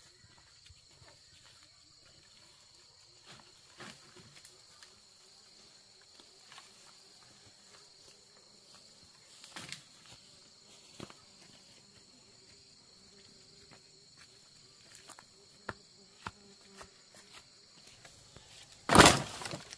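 Steady high insect buzzing, with scattered light snaps and rustles of twigs. Near the end comes one loud, brief clatter of wooden branches dropped onto a woodpile.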